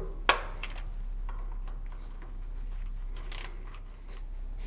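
A small torque wrench tightening the tooth belt wheel bolts to 8.4 Nm: one sharp click about a third of a second in, then a lighter click and a few faint taps, over a steady low hum.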